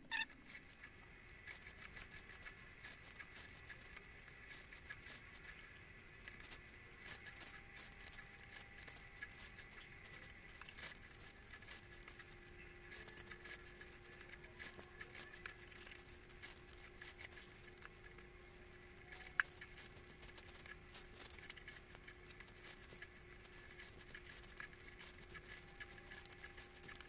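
Near silence: faint scattered rustles and clicks of waxed macramé thread being pulled and knotted by hand, over a faint steady hum.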